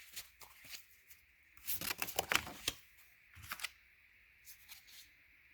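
Tarot cards being shuffled by hand: short flurries of crisp card flicks and slaps, the biggest about two seconds in, then two smaller flurries and a few faint flicks near the end.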